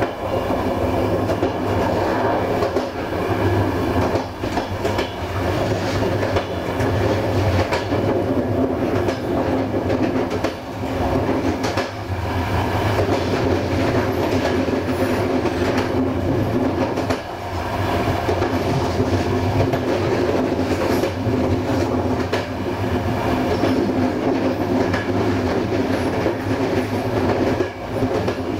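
Passenger train running along the track: a steady rumble of wheels on rail, with the wheels beating over the rail joints.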